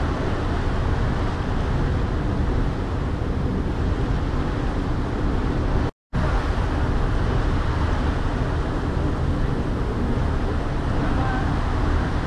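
A ferry under way: a steady low rumble of its engine mixed with the rush of water churning in its wake. The sound cuts out completely for a moment about six seconds in.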